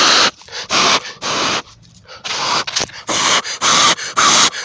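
A person blowing on a smouldering tinder ember in a grass bundle to get it to catch flame: a series of short, loud breath puffs striking the microphone, about two a second, with a short pause around two seconds in.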